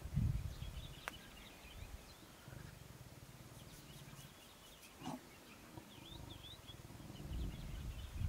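Low lion growls, loudest right at the start and again near the end, with faint high chirps in the background.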